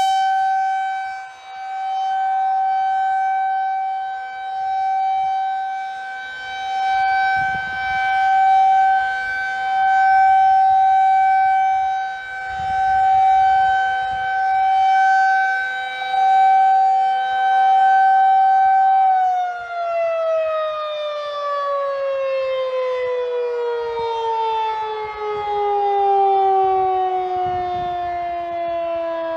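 Federal Signal 2001 rotating tornado siren sounding a steady tone during its monthly test, the tone swelling and fading every couple of seconds as the horn turns. About two-thirds of the way through, the pitch starts falling steadily as the siren winds down.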